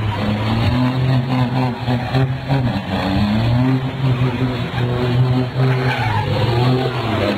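Diesel truck tractor doing a burnout: the engine held at steady high revs with a continuous low drone while the rear tyres spin and skid on the tarmac.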